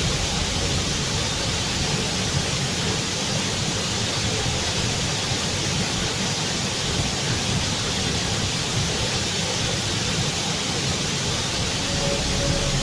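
Waterfall rushing: an unbroken, even hiss of falling water.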